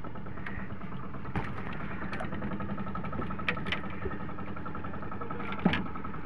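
Boat engine running steadily at low revs, with a few sharp clicks over it, the loudest near the end.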